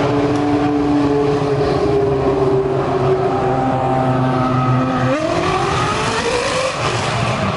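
Car engine running at steady revs, then about five seconds in its pitch drops sharply and climbs steadily as it accelerates.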